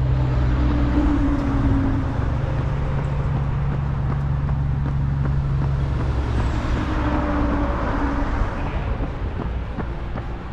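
Motor vehicle engine running with a steady low hum, then a rushing swell of traffic noise about seven to eight seconds in, as of a vehicle passing.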